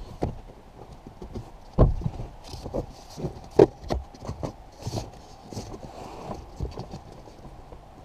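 Cabin air filter being pushed by hand into its plastic housing: irregular plastic knocks and clicks with rustling, the sharpest knocks about two and three and a half seconds in.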